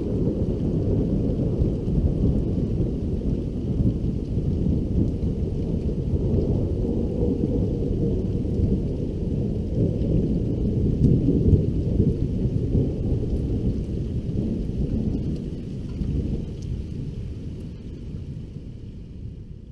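Long rolling thunder from a lightning strike about 1 km away: a deep rumble that holds for some fifteen seconds, then dies away near the end.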